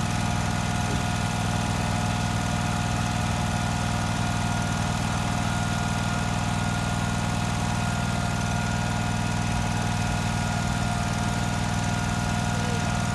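Riding lawn mower engine running at a steady, unchanging speed.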